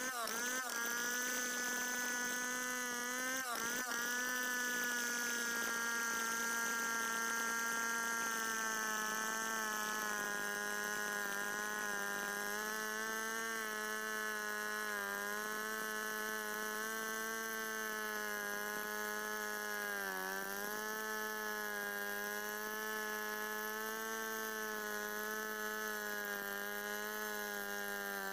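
Stihl two-stroke chainsaw running at high revs while ripping lengthwise through a santol log in freehand milling. Its high, steady engine note dips briefly in pitch about half a second in, again near three and a half seconds, and once more about twenty seconds in, as the chain takes more of the cut.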